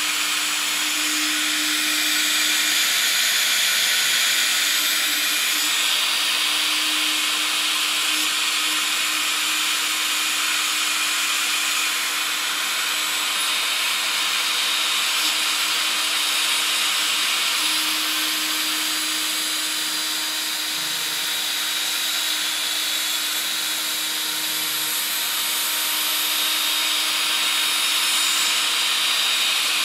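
Small electric motor spinning the rotor of a 3D-printed gyroscope at high speed: a steady whirring hiss over one unchanging hum, swelling and easing a little as the gimbal is tilted.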